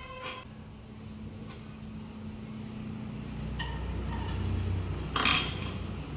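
Metal utensils clinking against a small steel pot and bowl, a few separate clinks with the loudest clatter near the end, over a low steady rumble.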